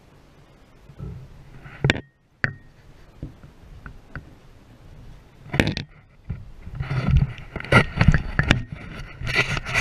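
Knocks, scrapes and rubbing from handling on a small boat: a few scattered knocks at first, then a busy run of knocks and scrapes through the second half.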